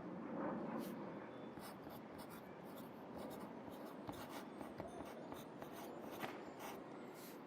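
Pencil writing on paper: a run of short, irregular scratching strokes, over a steady low hum of city traffic.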